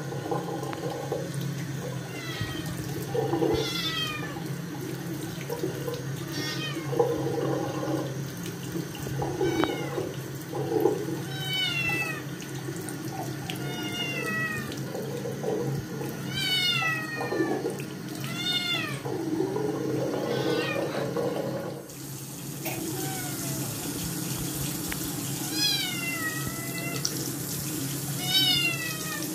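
Scottish Fold kitten meowing loudly over and over, protesting at being bathed, each meow falling in pitch, with a short break partway through. A tap runs into the sink.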